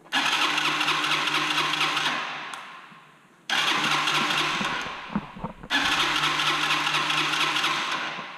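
Kymco Zing II 125 cranked on its electric starter in three attempts of about two seconds each, each one trailing off without the engine catching. After years of standing, a new battery has not been enough to get it to start.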